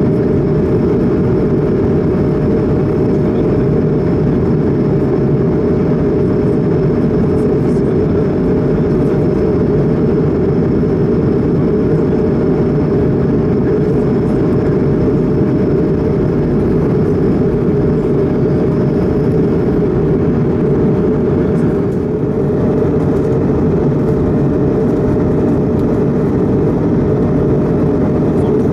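Steady cabin roar of a Bombardier CS100 (Airbus A220-100) in flight, heard inside the cabin over the wing: its Pratt & Whitney PW1500G geared turbofans and the rush of air along the fuselage, with a steady hum running through it.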